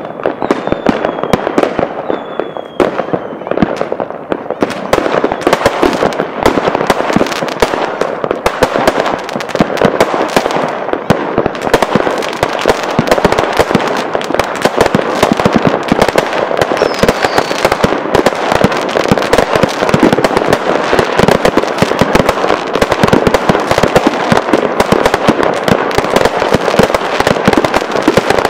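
Many consumer fireworks going off at once: a dense, unbroken run of bangs and crackle from aerial shells and rockets bursting overhead, with a few falling whistles early on and one more just past the middle.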